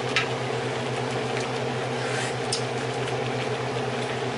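Steady low hum of a kitchen appliance motor running, with a couple of light clicks of a metal spoon against a stainless wok.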